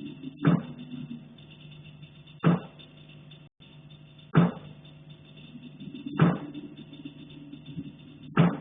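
Repeated heavy knocking from the attic overhead: five single knocks, about one every two seconds, over a steady low hum.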